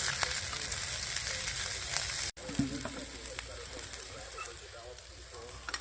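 Leftover rice, broccoli and beef sizzling and crackling as they fry in a pan. The sound cuts out abruptly a little over two seconds in and resumes quieter.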